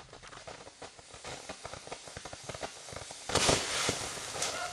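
Fireworks crackling with many quick sharp pops, then, about three and a half seconds in, a loud rushing hiss as a ground firework ignites and sprays sparks.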